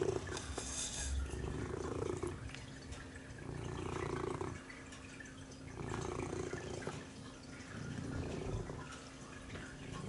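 Orange tabby cat purring close to the microphone, the purr swelling and fading about every two seconds with its breaths.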